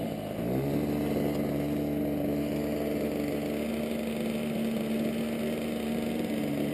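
Internal-combustion engine of a radio-controlled Ultimate aerobatic biplane running while the model taxis on grass. Its pitch shifts up about half a second in, then holds steady.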